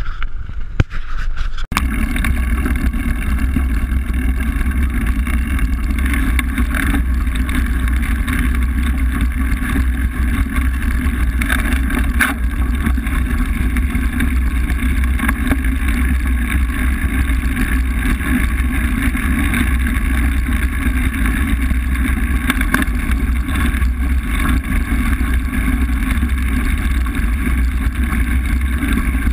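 Mountain bike's knobby tyre rolling over a gravel forest road, with a steady heavy wind rumble on the microphone. The rumble sets in suddenly about two seconds in, and loose stones click now and then.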